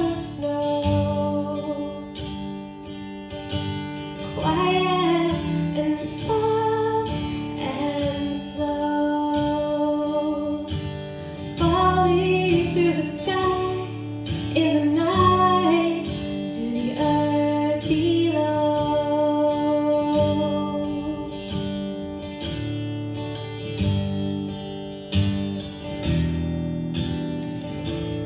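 A woman singing a song into a microphone, holding long notes, accompanied by a strummed acoustic guitar.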